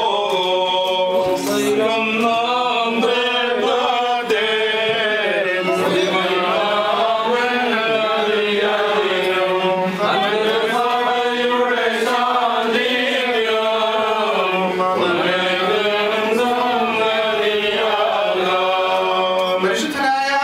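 Men's voices chanting a Malankara Orthodox liturgical hymn, with long held notes that glide up and down.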